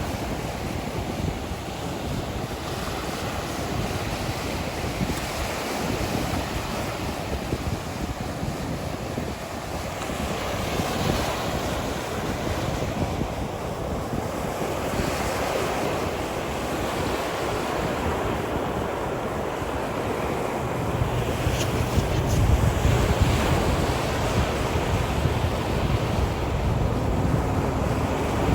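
Sea waves washing onto a shore in a continuous rush of surf that swells and eases, with wind. Wind buffeting the microphone adds a low rumble that grows stronger about two-thirds of the way in.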